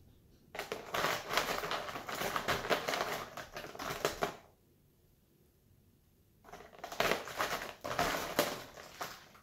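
Plastic felt-tip markers clattering and rattling against each other and a clear plastic bin as a hand rummages through the pile. It comes in two spells with a pause of about two seconds between them.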